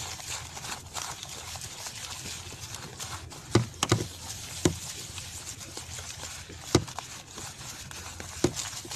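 Hands kneading and squishing damp fishing groundbait in a plastic bowl, a continuous gritty rustling, with a few sharp knocks spread through it.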